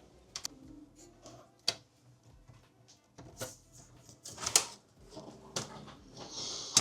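Scattered light clicks and knocks of small hard objects being handled, with a short hiss near the end.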